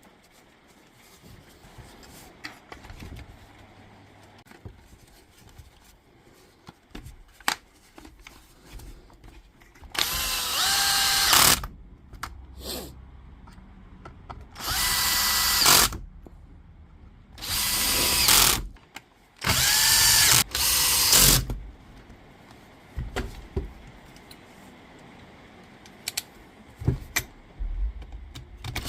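Power drill run in four short bursts of about a second and a half each, its whine rising in pitch within each burst. Small clicks and knocks come between the bursts.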